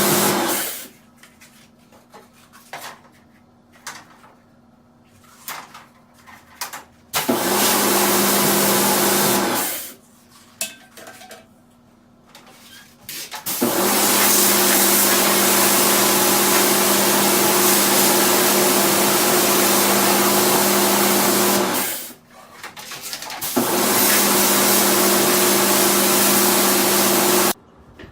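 Electric high-pressure washer spraying in bursts, as used to wash out an air conditioner: a steady motor hum under a loud hiss of spray, switched on and off four times, with the longest run of about eight seconds. Light clicks and knocks are heard in the pauses.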